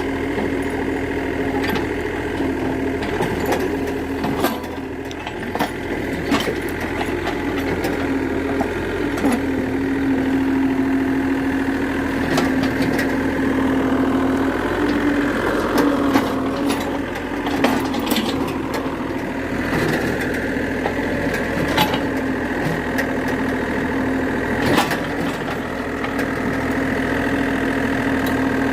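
Excavator's diesel engine running steadily, its pitch rising and dipping for a few seconds around the middle, with scattered sharp knocks and cracks.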